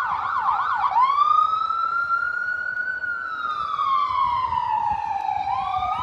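Emergency vehicle siren: about a second of rapid up-and-down yelps, then a long wail that rises, holds, slowly falls and starts rising again near the end.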